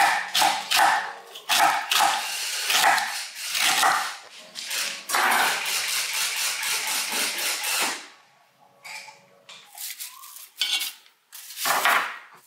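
A dog barking over and over, about two barks a second, for the first five seconds, followed by a few seconds of steady noise. Near the end come a few sharp knocks of a knife on a wooden cutting board.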